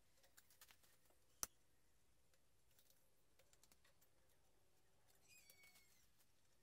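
Near silence: faint room tone with a single sharp click about a second and a half in, scattered faint ticks, and a few faint high chirps falling in pitch a little after five seconds.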